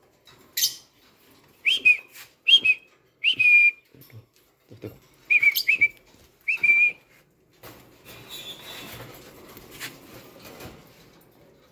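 Lovebirds giving about seven short, shrill whistled chirps, each dropping in pitch at the end, over the first seven seconds. After that comes a soft steady rustling as a bunch of watercress is pushed against the cage wire.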